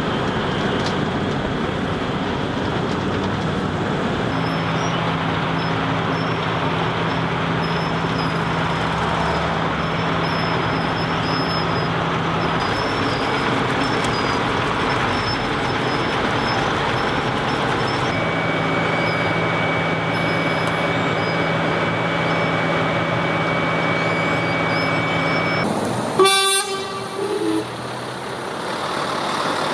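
Road traffic and heavy vehicles running at a road repair site, with steady engine hum. Near the end comes one brief loud burst, after which it is briefly quieter.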